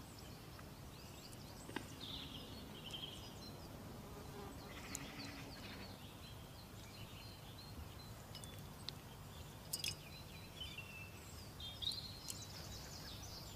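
Faint outdoor garden ambience: a low steady hum with scattered faint high chirps and a few small clicks.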